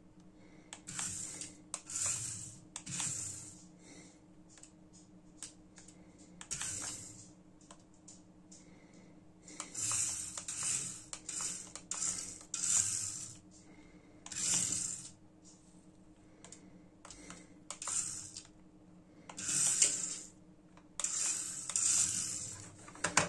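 Amewi 21079 1:67 mini RC rally car's tiny electric drive motor and gears whirring in repeated short high-pitched bursts, under a second to about a second each, as the car is driven in spurts and stops. A faint steady low hum lies underneath.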